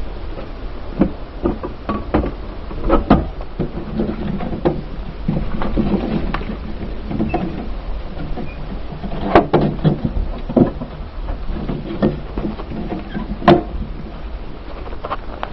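Car interior noise: a steady low rumble with many irregular knocks and rattles, a few of them sharper and louder.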